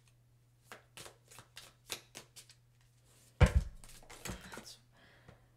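A small deck of round oracle cards being shuffled by hand: a run of quick card clicks and slaps, one louder knock about three and a half seconds in, then more shuffling.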